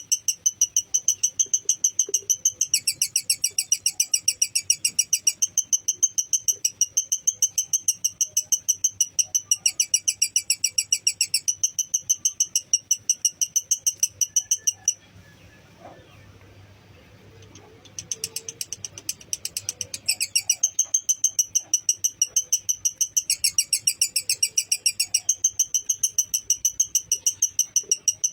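A lovebird's long, rapid chattering song (ngekek), a fast even string of shrill notes at about eight a second, dropping to a lower pitch in a few stretches. It stops for about three seconds just past halfway, then starts again.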